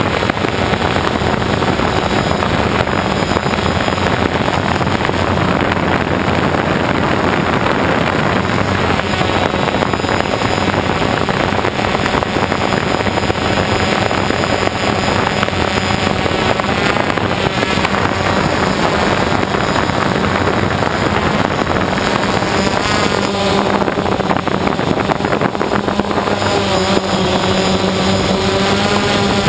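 A quadcopter's electric motors and propellers running steadily, heard from the camera carried on the drone. In the last few seconds the pitch slides up and down as the throttle changes.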